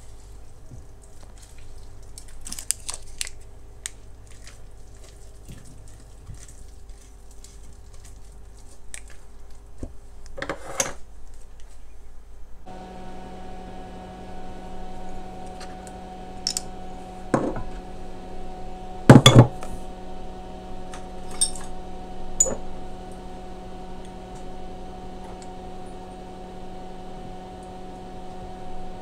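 Kitchen dishes and utensils knocking and clinking now and then, with one loud knock about two-thirds of the way through. A steady low hum sets in about halfway.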